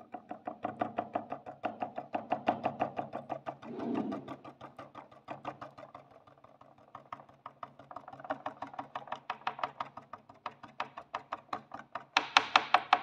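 Rapid fingertip tapping on a clear acrylic plate, about five or six taps a second, shaking iron filings into the magnetic field pattern around a current-carrying copper coil. The taps grow much louder near the end, over a faint steady low hum.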